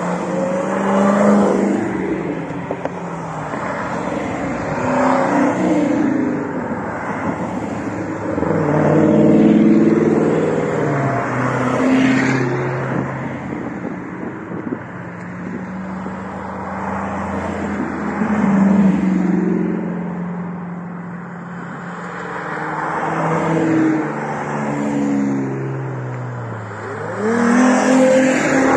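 A procession of Dodge Challenger muscle cars driving past one after another, each engine note swelling as a car approaches and dropping away as it passes, with a gap partway through and a louder group passing near the end.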